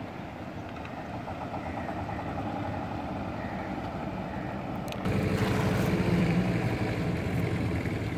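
An engine running steadily with a fast, even throb, louder from about five seconds in.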